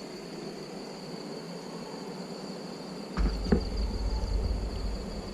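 Insects trilling steadily at one high pitch. About three seconds in there is a sharp knock, then a low rumble.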